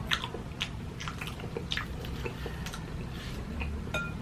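A person chewing food with the mouth close to the microphone: irregular wet smacks and clicks.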